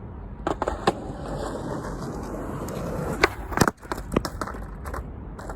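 Skateboard wheels rolling with a steady rumble, broken by several sharp clacks of the board during trick attempts; the loudest pair comes about three and a half seconds in.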